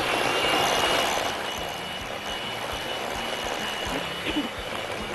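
Handheld electric mixer running steadily, its beaters creaming cold ghee and powdered sugar in a glass bowl, with a steady high motor whine over the whirr. It is a little louder for the first second or so.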